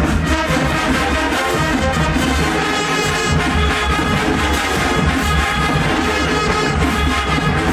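HBCU marching band playing loudly: a full brass section over pounding bass drums in a steady beat.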